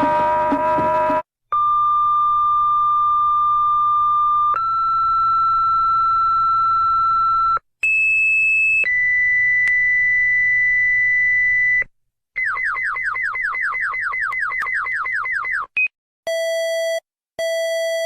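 Electronic emergency-alert tones. Steady held tones at several different pitches follow one after another with short gaps. These give way to a rapid run of falling chirps, about four a second, and then to buzzy beeps repeating about once a second.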